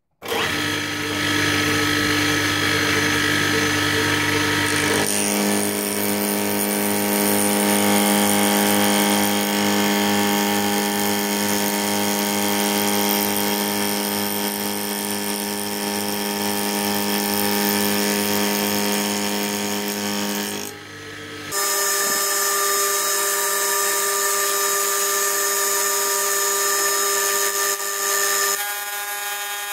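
A homemade two-insert carbide end mill cutting a shoulder in cold-rolled steel on an old mill-drill. The cut is a loud, steady, ringing run with a faint regular pulsing. The tone changes abruptly about five seconds in and again about two-thirds of the way through.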